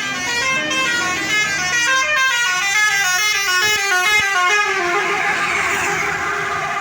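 Tour bus's Basuri 'telolet' multi-tone horn playing a quick tune of short, stepped notes. A rushing noise builds under it in the last couple of seconds.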